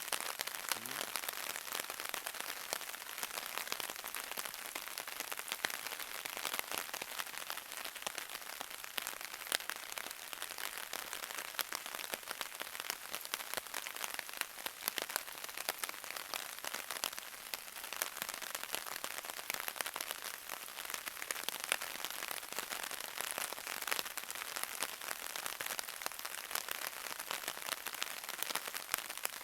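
Steady rain falling, with many individual drops heard as sharp ticks over an even hiss.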